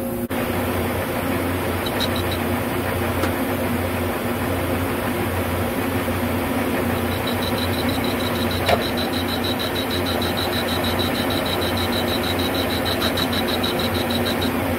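Metal lathe running with its four-jaw chuck spinning, the cutting tool facing the end of a rusty steel bar: a steady machine hum, joined about halfway through by a high, rapidly pulsing whine from the cut.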